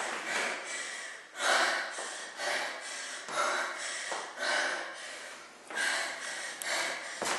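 A woman breathing hard through her mouth from exertion, a run of short, loud breaths several times a second, picked up close by a clip-on microphone on her chest.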